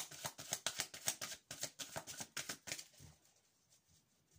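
Tarot cards being shuffled by hand: a quick run of soft card clicks, several a second, that stops a little before three seconds in.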